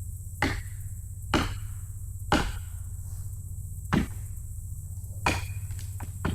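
A series of six sharp knocks or chops, irregularly spaced about a second apart, over a steady low hum.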